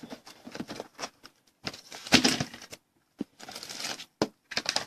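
Handling noise: short rustles and a scatter of sharp clicks and taps, with a quick run of clicks near the end.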